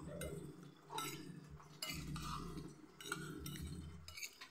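Metal fork and spoon clinking and scraping against a glass plate of vegetables, with several short sharp clinks spread through.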